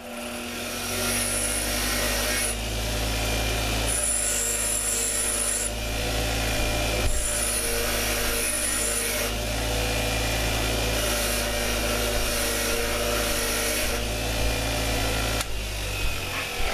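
Bench grinder motor running with a steady hum while a small metal part is pressed against the spinning wheel, giving a rasping, scraping grind that comes and goes. The grinder starts right away and is switched off shortly before the end.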